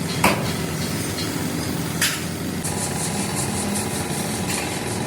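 An engine running steadily, with two sharp knocks about two seconds apart and a quick run of light ticks after the second.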